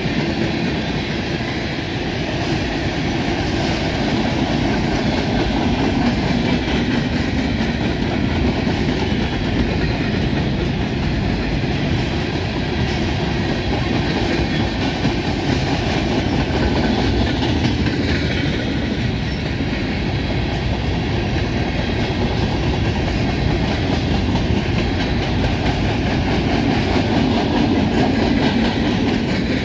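Freight train's tank cars and covered hopper cars rolling past at a steady speed, steel wheels running on the rails.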